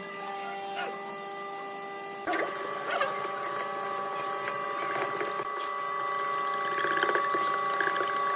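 Lathe motor running with a steady multi-tone whine that jumps louder a little over two seconds in; from about halfway, a turning tool scrapes against the spinning workpiece in quick, uneven bursts that grow louder toward the end.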